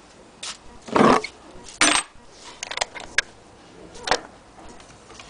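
A series of sharp knocks and clicks, like hard objects being handled and set down: two louder knocks about one and two seconds in, a quick run of lighter clicks, then another knock about four seconds in.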